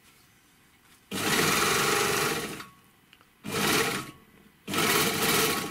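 Gemsy 1D three-thread overlocker running in three short bursts as it sews a test seam. The first run lasts about a second and a half and starts about a second in. Two shorter runs follow near the end.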